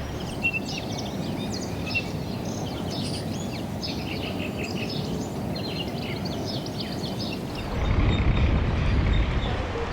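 A flock of small birds chirping and twittering, many short high calls overlapping, over a low rumble of wind on the microphone. The wind grows louder near the end as the chirping fades out.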